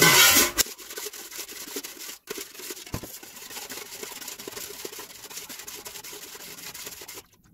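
Metal spoon stirring and scraping against the bottom of a stainless steel pot of water, with undissolved citric acid and raw sugar grit rubbing as they are dissolved; a steady scratchy rubbing that breaks off briefly twice.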